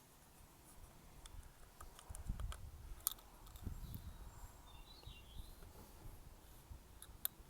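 Quiet handling of a motorcycle turn-signal assembly: scattered light clicks of plastic and metal parts and rubbing as the lamp is seated and screwed to its housing, with a sharper click about three seconds in and another near the end.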